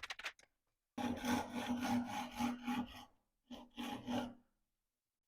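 Hand saw cutting through a turned wooden handle in quick back-and-forth strokes, parting it off from the rest of the stock. A short pause after about three seconds, then a few final strokes finish the cut.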